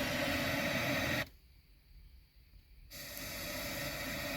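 Steady background hiss that cuts out abruptly a little over a second in, leaving near silence for about a second and a half before the hiss returns.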